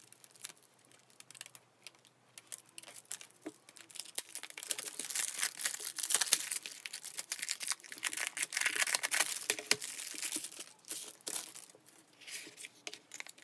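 Plastic wrapping on a CD album crinkling and tearing as it is pulled off, with scattered clicks and taps of the packaging being handled. The crinkling is densest through the middle and dies back near the end.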